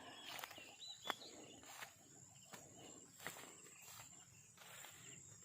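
Faint footsteps through grass and vegetation, a soft step about every 0.7 s, over a steady thin high-pitched hum, with a few short bird chirps about a second in.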